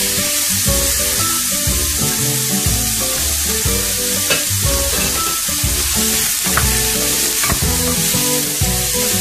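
Chicken feet sizzling as they sauté in hot oil with onion, garlic and ginger in a stainless steel pan, stirred with a wooden spoon, with a few short scrapes of the spoon against the pan. Music plays underneath.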